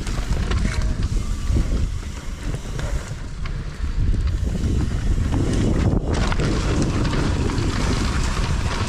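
Wind buffeting the camera microphone on a mountain bike riding down a dirt trail, with tyre and ride noise underneath and a few sharp knocks from the bike over rough ground.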